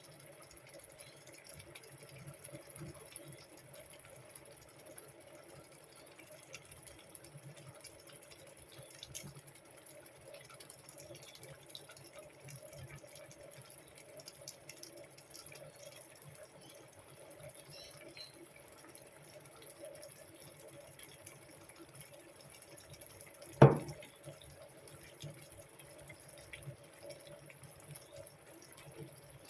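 Water running, as from a kitchen tap, with one sharp knock, the loudest sound, near the end.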